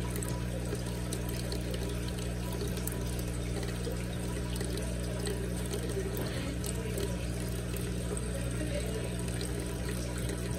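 Aquarium filtration running: a steady trickle and gurgle of moving water over a low, constant hum.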